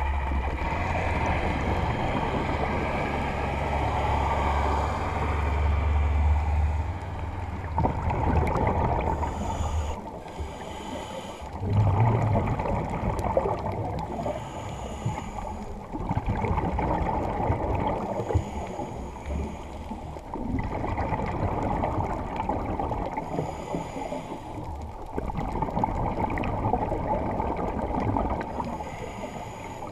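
Muffled underwater sound of a scuba dive: a steady watery rush with gurgling exhaled bubbles that swell and fade every few seconds, and a low hum in the first several seconds.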